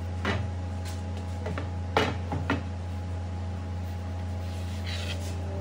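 A few light knocks and taps of a melamine board being handled and pressed into place on a table saw's side wing, over a steady low hum.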